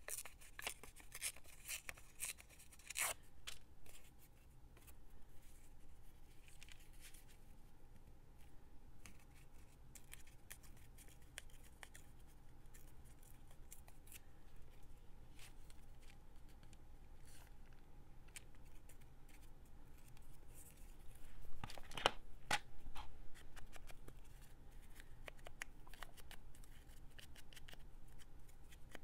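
Paper crafting at a desk: scattered short clicks, snips and rustles of paper and small tools, thickest in the first few seconds, with a louder cluster a little over twenty seconds in.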